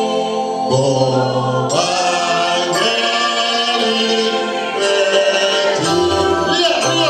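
Gospel song sung by a church choir and congregation, led by a man's voice over a microphone, with held low accompanying notes underneath.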